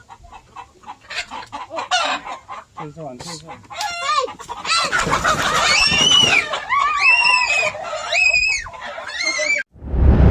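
Chickens clucking in short pulses, then a run of loud, drawn-out calls that rise and fall in pitch, cutting off suddenly near the end.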